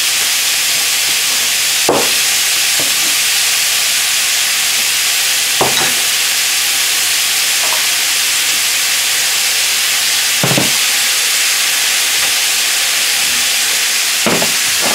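Small-cut marinated beef fillet frying in hot oil in a pan, a steady loud sizzle, with four short knocks spread through it.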